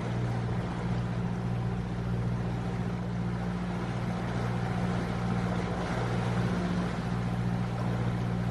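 Catamaran's inboard diesel engine running steadily under way, a constant low hum under an even hiss of water and wind.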